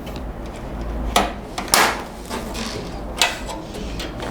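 Motherboard I/O back plate being pressed into the rear opening of a PC cabinet: three sharp metal clicks as it snaps into place, the second one loudest.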